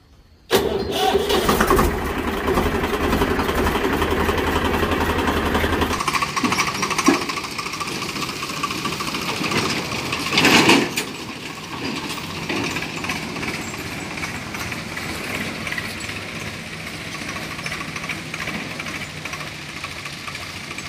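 A diesel tractor engine sound effect running with a knocking chug. It starts about half a second in with a heavy low rumble, drops to a quieter run about six seconds in, and has a brief louder burst about ten seconds in.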